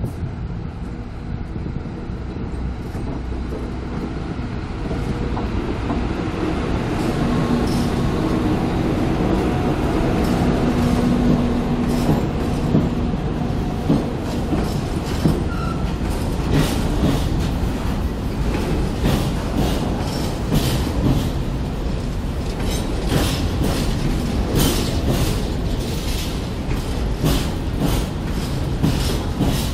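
Freight train of open wagons rolling past behind an electric locomotive: a steady heavy rumble of wheels on rails, growing louder early on, then about halfway in a regular clatter of wagon wheels over rail joints.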